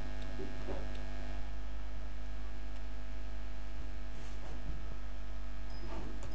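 Steady electrical mains hum: a low, unchanging buzz with a stack of evenly spaced overtones.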